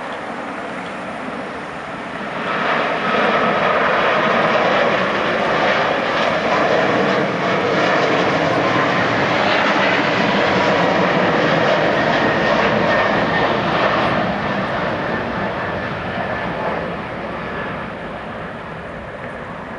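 Boeing 777-200ER's twin jet engines at takeoff power as the airliner passes. The roar swells sharply about two and a half seconds in, holds loud with a faint whine through the middle, then fades over the last few seconds.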